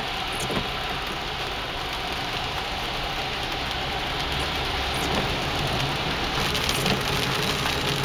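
Heavy rain striking a car's windshield and body, heard from inside the moving car, over the steady hiss of tyres on the wet freeway. About six seconds in, the rain on the glass grows louder and crisper, with many small ticks of individual drops.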